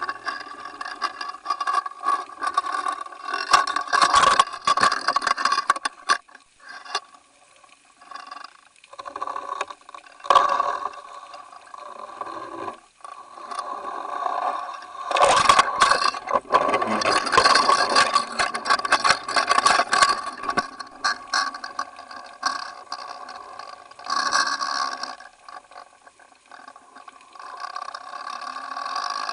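Muffled rush of water with rattling scrapes, heard from inside the housing of an underwater fishing camera clipped to the line, swelling and easing in waves as the hooked tope tows it.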